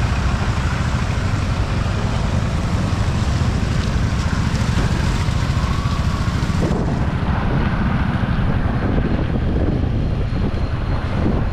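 Wind buffeting the microphone over the steady rumble of a vehicle travelling along a badly broken road.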